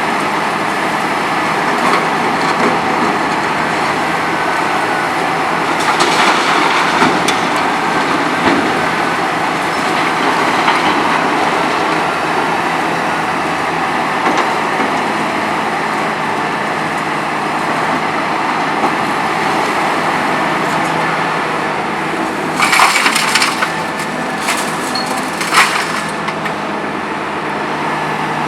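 Hitachi ZX 300LC-6 excavator's diesel engine running steadily while its VTN VF 23 crusher jaws crack and break concrete, with bursts of cracking and crunching about six seconds in and again about 22 to 26 seconds in.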